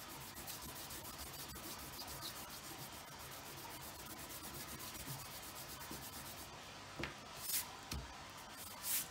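Rubber eraser rubbed briskly back and forth over watercolour paper, erasing pencil lines with a steady scratchy rubbing. Near the end come a few short, louder swishes as a hand sweeps the eraser crumbs off the paper.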